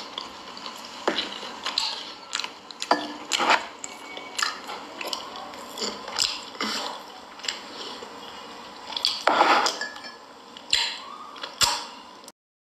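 Close-up eating sounds: chewing with loud, wet lip-smacking and irregular sharp clicks, with small clatters of a container and cup. The sound stops abruptly near the end.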